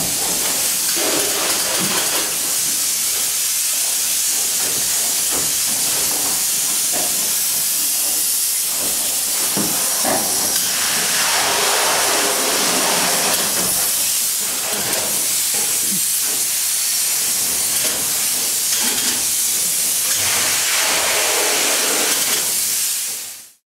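Closed-cell spray foam gun hissing steadily as foam is sprayed onto the roof deck between the rafters, with scattered knocks and rustles under it; it cuts off suddenly near the end.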